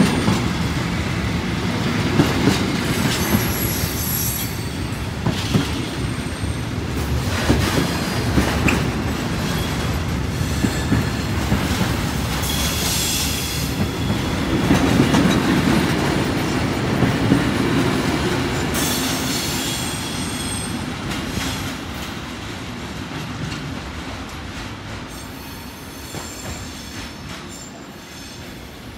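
Freight train wagons rolling past: a steady rumble, wheels clattering over rail joints, and short high-pitched wheel squeals now and then. The sound fades away over the last few seconds as the end of the train moves off.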